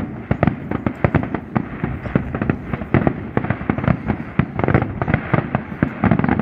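Fireworks display: aerial shells bursting in a dense, continuous string of sharp bangs and cracks, several a second.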